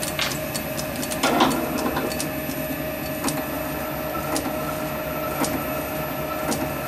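Small metal lathe with a four-jaw chuck coasting to a stop after drilling: a steady machine hum with a constant whine, a couple of clunks in the first second and a half, then faint ticks about once a second.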